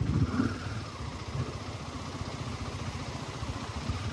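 Motorcycle engine running with an even, low pulsing note.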